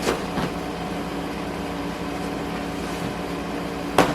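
A steady droning hum made of several even tones, with a couple of light clicks just after the start and a sharper click near the end.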